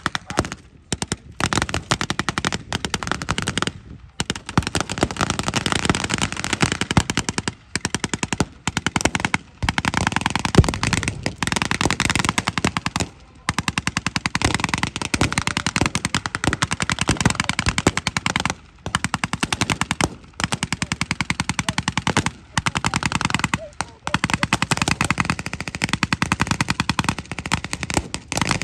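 Machine guns firing blanks in long, rapid bursts, broken by short pauses every few seconds, during a staged battle display.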